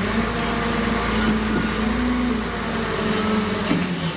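Excavator's diesel engine running steadily, with a low rumble and a hum that wavers slightly in pitch.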